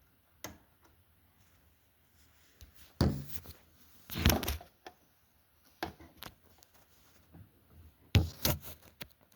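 Handling noise: irregular knocks, taps and clicks, with louder thunks about three, four and eight seconds in.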